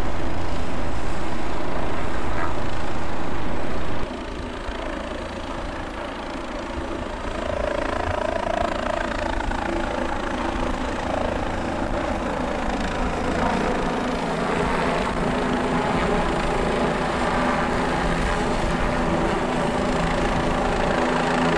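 Helicopter running in flight, a steady low drone of rotor and engine. It is loudest for the first four seconds, then drops and slowly builds again.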